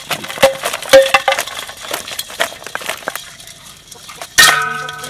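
Crabs and snails dropping and clattering into an aluminium bowl, a quick run of clicks and clinks against the metal. A little over four seconds in, the bowl takes one hard knock and rings briefly.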